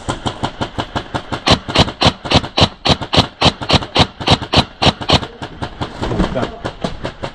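Airsoft rifle firing a rapid, steady string of shots, about five or six a second, growing weaker and less regular near the end.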